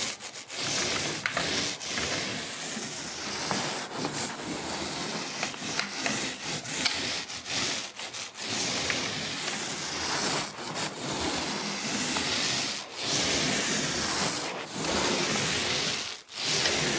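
Paint roller loaded with wall paint rolling up and down a wall, a continuous hiss broken by short pauses between strokes about every two seconds.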